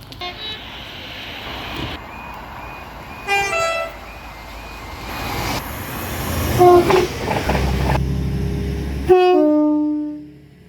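Train horns sounding in a series of short blasts, each a chord of several notes, cut together from different recordings. Near the end a longer blast follows a low train rumble, sagging slightly in pitch as it fades away.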